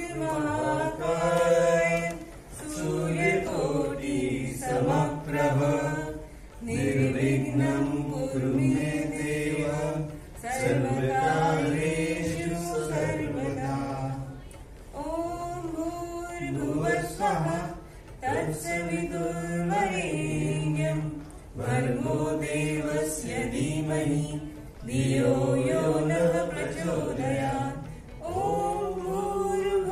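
A Hindu devotional mantra sung unaccompanied, in phrases a few seconds long with short breaks between them.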